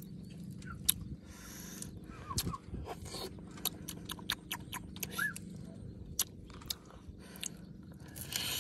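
Close-up mouth sounds of eating: a string of sharp wet clicks and smacks, then near the end a louder rasping bite into a grilled pig tail.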